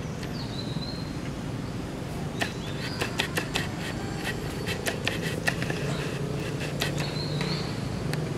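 Outdoor woodland ambience: a bird gives a short chirping call near the start and again near the end, over a steady low hum. Through the middle comes a run of sharp crackles and clicks, like dry leaf litter being stepped on.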